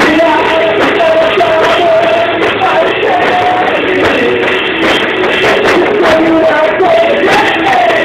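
Live band playing a rock song, with a melody line carried over a steady run of percussion hits.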